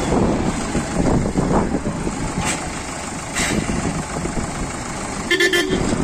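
Road traffic passing, with a car horn sounding a short beep near the end.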